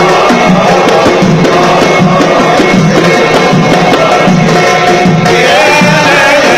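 A Tunisian Sulamiya ensemble's hand frame drums beating a fast, loud, driving rhythm. About five seconds in, men's voices come in with a devotional chant over the drums.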